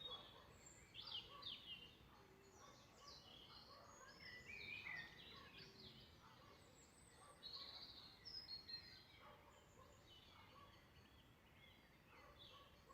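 Faint songbird chorus: several birds singing, with short chirps and whistled phrases coming and going throughout.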